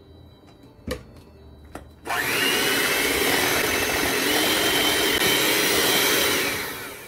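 Handheld electric mixer switched on about two seconds in, beating thick creamed butter-and-sugar cookie dough in a stainless steel bowl: a loud steady motor whine, its pitch stepping up a little partway through, then winding down near the end. A few light clicks come before it starts.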